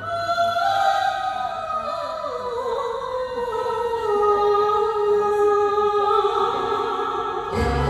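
Music: a slow melody of long, held notes that step downward, with the bass and beat dropping out and coming back in near the end.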